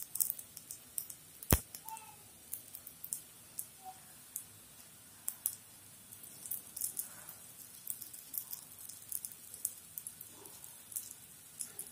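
Msemen flatbread frying in an oiled pan: faint, irregular crackles and pops of hot oil, with one sharper click about a second and a half in.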